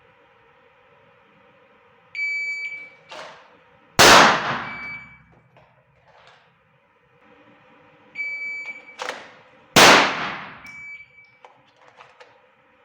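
Two repetitions of a timed draw-and-fire: each time a shot timer gives a short beep, there is a brief rustle as the Glock pistol is drawn from a concealed holster, and about two seconds after the beep a single loud pistol shot rings out. The two strings fall about six seconds apart, over a steady background hum.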